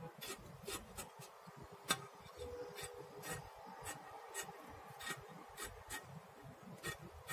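Dressmaking scissors snipping through fabric folded in two layers, a run of short crisp cuts about two a second.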